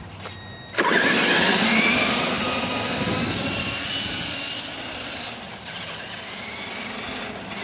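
Traxxas E-Maxx electric RC monster truck launching about a second in: a rising electric motor and gear whine with tyre noise on the pavement, fading as it speeds away down the street.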